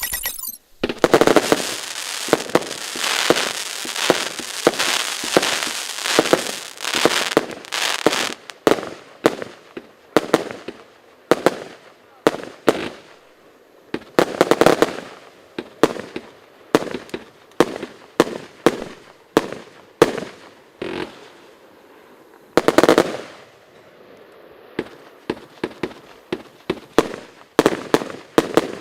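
Lesli "Morse Code" firework going off: about seven seconds of dense, continuous crackling, then a long string of single sharp reports about one a second, each dying away quickly, broken by a few longer crackling bursts.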